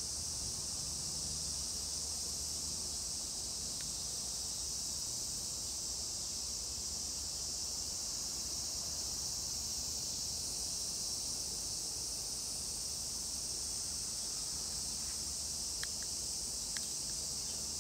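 Insects droning in a steady, high-pitched chorus over a faint low rumble, with a few faint clicks near the end.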